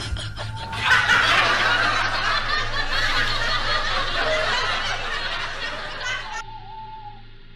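Kuntilanak ghost's high-pitched cackling laugh, echoing, starting about a second in and cutting off suddenly shortly before the end.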